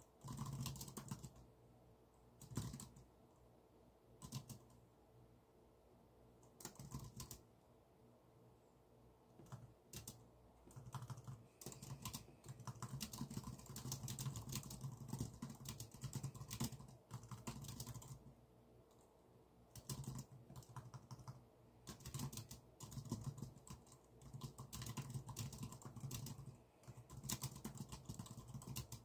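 Typing on a computer keyboard in uneven bursts: a few scattered keystrokes at first, then longer quick runs of key clicks broken by short pauses.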